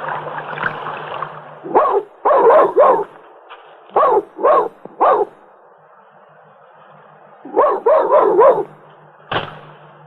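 A dog barking in three quick runs of three or four barks each, with a single sharp knock near the end.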